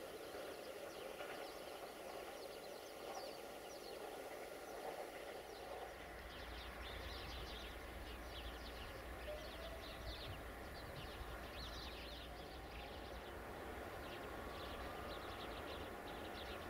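Faint open-air ambience with small birds chirping in quick, repeated calls. A low distant rumble sets in about five seconds in and continues underneath.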